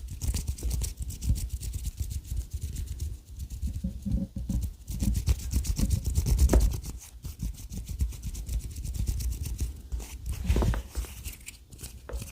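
Hands rubbing close to the microphone for ASMR: a continuous run of quick rubbing strokes that swell and fade in loudness.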